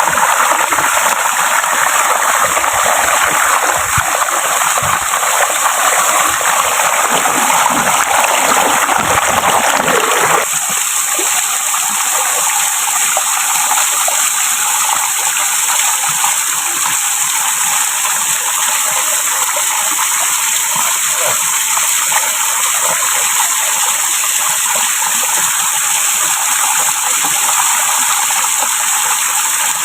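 Waterfall water rushing and splashing, a steady loud rush. About ten seconds in it changes abruptly to a thinner, lighter rush.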